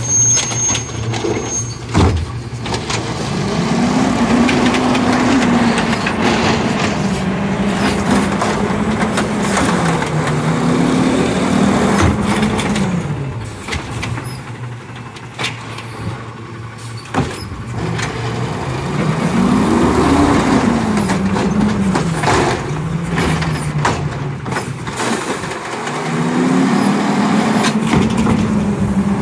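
Automated side-loader garbage truck at the curb, its engine revving up and falling back about four times as it drives the hydraulic arm to lift and empty the carts, with scattered clanks and knocks from the arm and carts.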